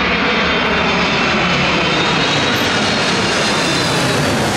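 Boeing 747's jet engines as the airliner passes low overhead on landing approach: a loud, steady rush with a faint high whine.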